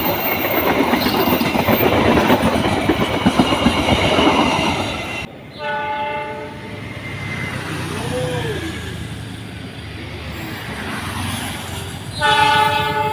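A passing train's wheels and cars rumble and clatter for about five seconds, then break off abruptly. An Indonesian diesel locomotive's horn then sounds a chord of several tones that fades, over quieter running noise, and blasts loudly again about a second before the end.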